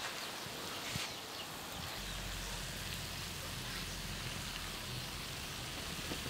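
Steady background hiss of quiet ambience with a light click about a second in; from about two seconds in, a steady low hum joins it.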